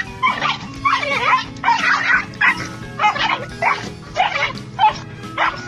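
Dog yelping and whining in distress while a rooster attacks it: a rapid run of high, short cries about every half second, over background music.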